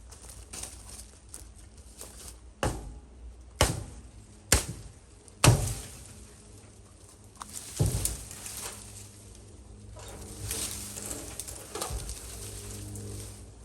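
A handful of sharp knocks and thuds, irregularly spaced, the loudest about five and a half seconds in, followed by a stretch of rustling.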